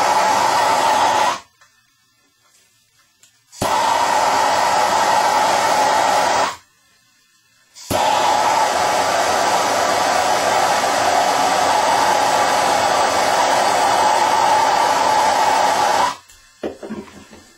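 Handheld gas soldering torch flame running steadily as a pipe joint is heated for soldering. It stops twice for a second or two and comes back each time with a click of ignition, then cuts off near the end, followed by a few faint knocks.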